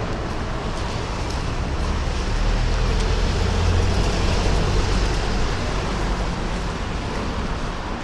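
Street traffic noise, with a vehicle passing close by: a low rumble that swells about two seconds in and fades a few seconds later.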